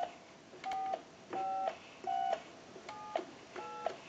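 Touch-tone keypad fitted into a Stromberg-Carlson wooden crank wall telephone dialing a number. About six short two-note DTMF beeps, each about a third of a second long, come at a steady pace, each just after the click of a key press.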